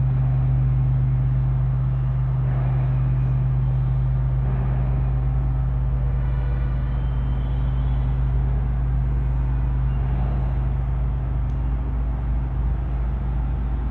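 A steady low hum, with faint strokes of a marker pen drawing on a whiteboard now and then.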